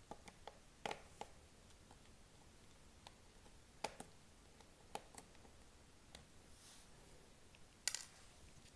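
Faint, scattered small clicks and taps as tiny screws are taken out of a laptop's plastic screen bezel with a small screwdriver and set aside.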